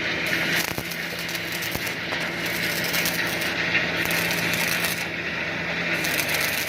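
Arc welding on pipe: a steady, dense crackle from the welding arc over a steady low hum.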